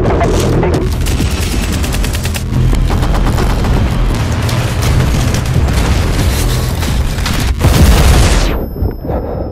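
Paintball markers firing in rapid strings of shots over a loud music track with a heavy, booming bass. Everything sweeps down and drops away about eight and a half seconds in.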